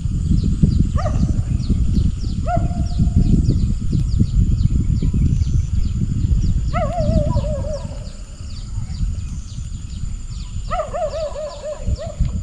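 Wild animal calls in the open: four pitched, wavering calls, each about a second long, over a steady run of fast, high, falling chirps repeating about twice a second. A low rumbling noise underneath weakens in the second half.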